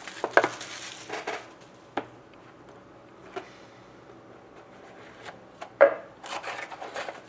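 Trading cards and their packaging being handled: soft rubbing and scraping, broken by a few sharp taps or clicks, the loudest about six seconds in.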